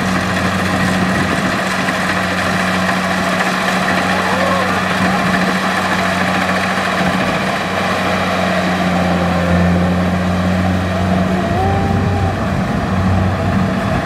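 Kubota DC70 rice combine harvester's diesel engine running steadily at working speed, a constant low drone, with a tractor's engine running alongside.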